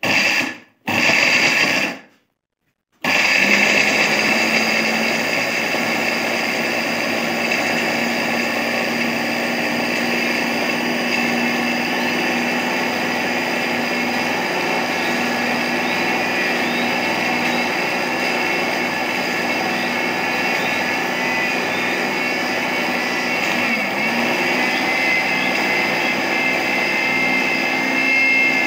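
Electric juicer/blender's small grinder jar dry-grinding roasted chickpeas, almonds and crystal sugar into powder. A short burst of running comes about a second in, then a brief stop, then steady running from about three seconds on.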